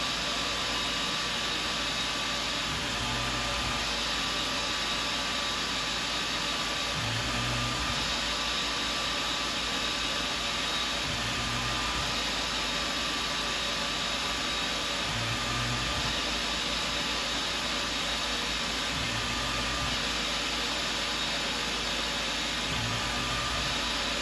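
Tormach CNC mill spindle running steadily while spinning a workpiece for turning, a constant hiss with a thin whine over it. A low hum swells briefly about every four seconds as the program cycles.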